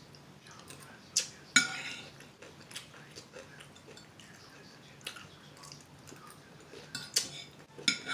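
Cutlery and dishes clinking a handful of times, each a short ringing clink, the loudest about a second and a half in, with a few more near the end.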